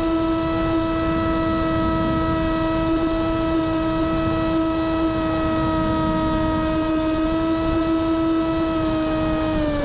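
Electric motor and propeller of an FPV flying wing at high throttle, heard from its onboard camera: a steady high-pitched drone held at one pitch, dropping slightly near the end, with wind rushing over the microphone.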